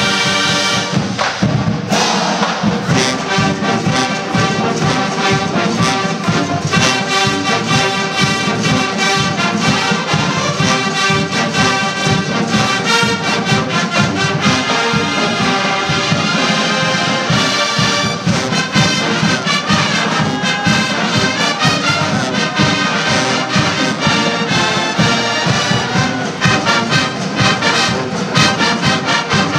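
A college marching band playing live: brass, with sousaphones, over a steady drum beat. A held chord opens, and the full band strikes up a fast rhythmic tune about two seconds in.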